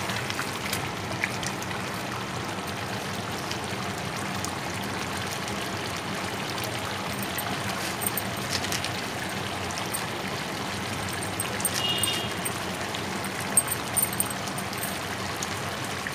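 Pot of beef and tinda curry simmering on the stove: a steady, even hiss with a few faint clicks and pops.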